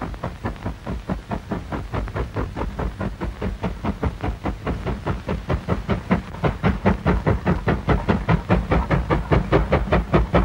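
Steam locomotive working hard, its exhaust beating in rapid, even chuffs over a low rumble and getting louder from about six seconds in as it draws nearer.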